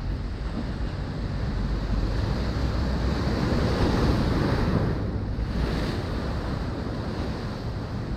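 Ocean surf washing on a beach, with wind rumbling on the microphone. A wave swells up and is loudest around the middle, then falls away.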